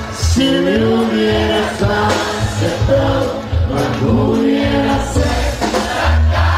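Live norteño band music: singing over a steady, pulsing bass line.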